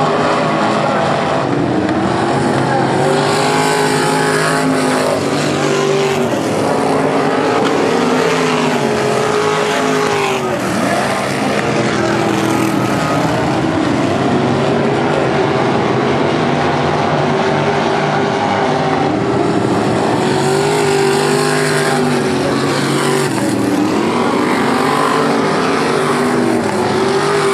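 Non-winged sprint car V8 engines racing on a dirt oval, several cars running together, their pitch rising and falling over and over as they accelerate and lift off for the turns.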